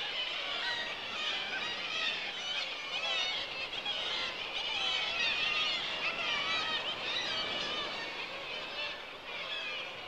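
Black-legged kittiwakes calling, many birds at once in a dense, overlapping chorus of short calls that rise and fall in pitch, typical of a breeding cliff colony.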